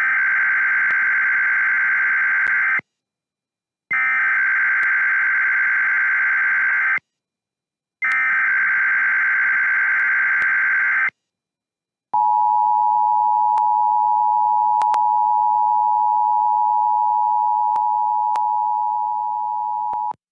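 Emergency Alert System test tones: three bursts of SAME digital header data, each about three seconds long with a second of silence between, followed by the EAS two-tone attention signal (853 and 960 Hz) held steady for about eight seconds.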